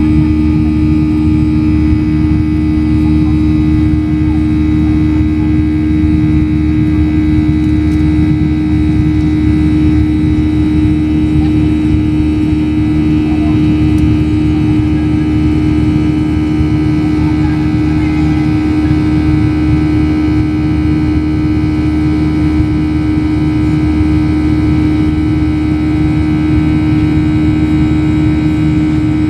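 Airliner jet engines droning steadily as heard inside the cabin during the climb after takeoff: a loud, unchanging hum with one strong low tone and fainter steady whines above it.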